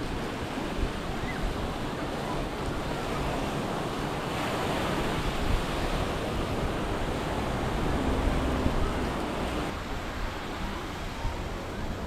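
Small sea waves washing up onto a sandy shore, with wind buffeting the microphone. The wash grows louder about four seconds in and eases again near the end.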